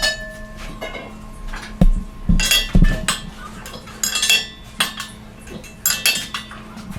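Steel clanking and ringing as metal parts are struck and handled during truck rim repair work: a string of irregular sharp knocks, each with a short metallic ring.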